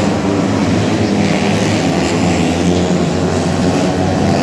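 Four-stroke 125cc underbone race motorcycle engines running, a loud steady drone that holds its pitch.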